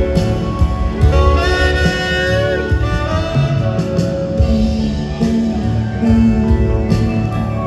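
Live rock band with a saxophone solo: the alto sax plays a phrase with bending notes over bass, drums, guitar and keyboards, the band carrying on after the phrase.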